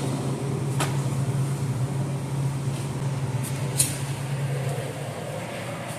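Steady low machine hum that fades out about five seconds in, with two light clicks of things being handled.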